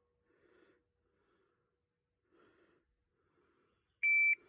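Shot timer's start beep: one short, steady, high-pitched electronic beep about four seconds in, the random-delay signal to draw and fire after the "stand by" command.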